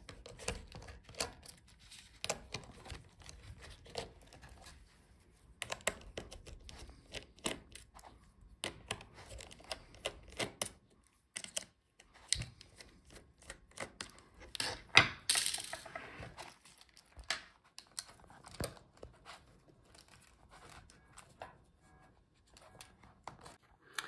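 Small clicks, taps and scrapes of a screwdriver working the metal hinge screws of a laptop display, with hands shifting the hinge brackets and panel. A brief louder rasping, tearing noise comes about fifteen seconds in, and the last few seconds are quieter.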